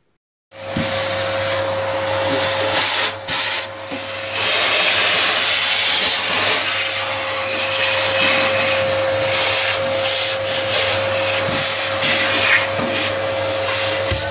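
Steady whir of a small fan-driven electric motor, such as a vacuum cleaner or blower, switched on about half a second in, with a steady hum and a couple of brief dips in level a few seconds in.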